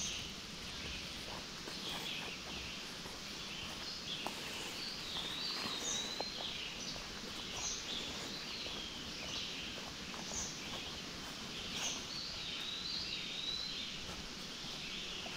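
A songbird singing short, high, warbling phrases again and again over a steady woodland background hiss, with a few faint footsteps on the forest floor.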